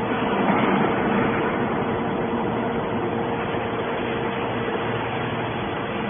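Hydraulic scrap metal baler running: a steady mechanical drone with a constant hum, swelling slightly about half a second to a second in.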